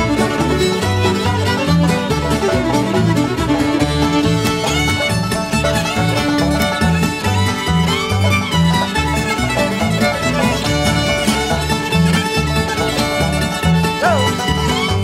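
Old-time string band playing a lively instrumental fiddle tune: the fiddle leads over banjo and guitar, with an upright bass keeping a steady beat.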